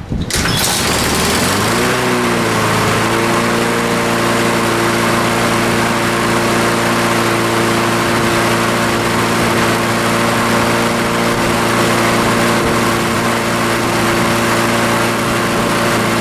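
Honda single-cylinder four-stroke lawn mower engine starting up after a carburetor cleaning: it fires just after the start, rises to speed over about two seconds, then runs steadily and smoothly. It sounds good, a sign the cleaned carburetor is working.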